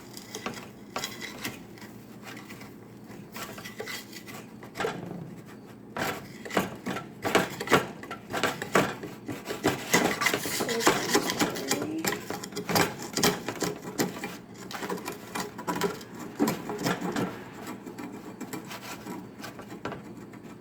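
A cooking tray being scraped clean in many quick, uneven strokes, busiest and loudest about halfway through.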